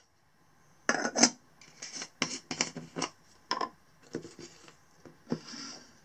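Stovetop moka pot and coffee jar being handled: a run of sharp metal and glass clinks and knocks, then a short scraping rasp near the end as a spoon scoops ground coffee from the jar.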